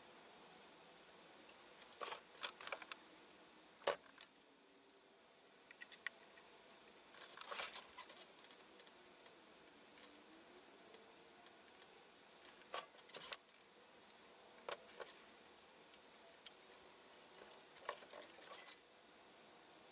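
Scattered light metallic clinks and clicks of hand tools and a printed circuit board being handled on a workbench.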